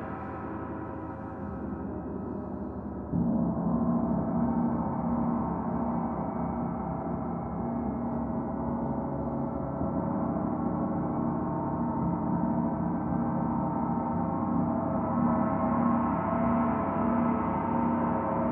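Gongs ringing on together in a sustained, many-toned wash. A fresh stroke about three seconds in makes it louder, and the lower tones waver as they ring.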